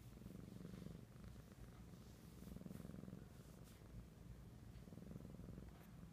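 Kittens purring faintly while being stroked: a steady low rumble that swells with each breath, about every two and a half seconds.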